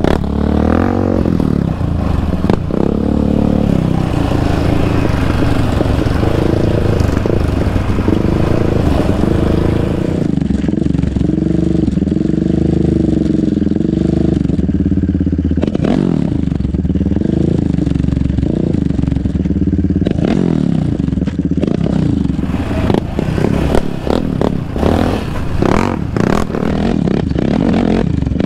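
Sport quad ATV engine running under hard riding, its pitch rising and falling as the throttle is worked, with tyres and gravel clattering.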